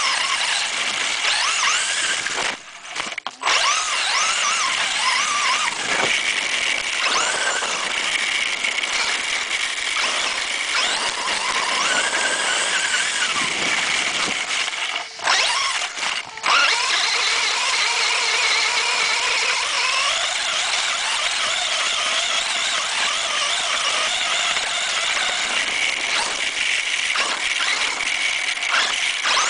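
RC car's motor and drivetrain whining close up from on board, the pitch rising and falling as it speeds up and slows, with tyres running through grass. The motor cuts out briefly twice, about three seconds in and again around fifteen seconds.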